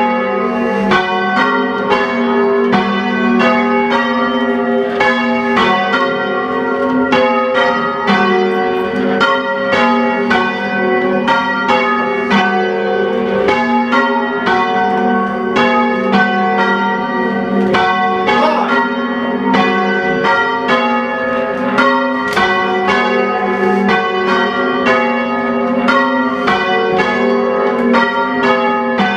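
A small ring of church bells rung full-circle in English change ringing: a steady, even stream of strikes cycling through the changes.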